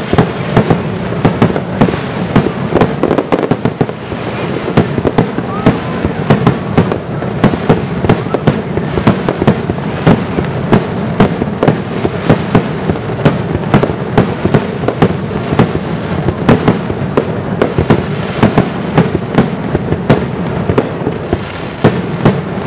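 Fireworks display: aerial shells bursting in quick succession, several sharp bangs a second over a continuous din of overlapping reports.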